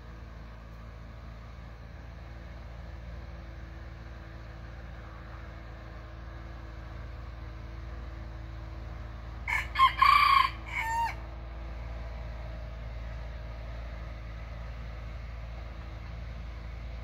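Red junglefowl rooster crowing once, about halfway through: a loud, clipped crow of roughly a second and a half with a short falling tail.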